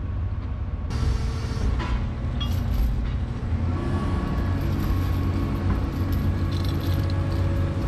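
Excavator's diesel engine running steadily, heard from inside the operator's cab as a low drone, growing a little fuller about four seconds in.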